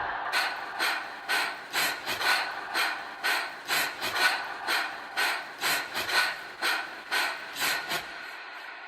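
Rapid, rhythmic panting breaths, about two a second, with no music under them. They stop about eight seconds in.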